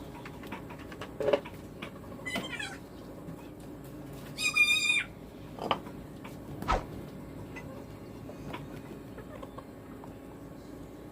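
Two short animal calls over a steady background hiss with a few light knocks: a brief falling call about two and a half seconds in, then a clearer, louder pitched call lasting about half a second, about four and a half seconds in.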